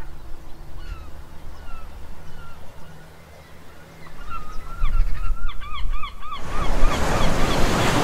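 Birds calling over the sea: scattered single calls at first, then a quick run of repeated calls about halfway through. Over a low steady rumble, waves break and splash against rocks from about six and a half seconds in, the loudest sound.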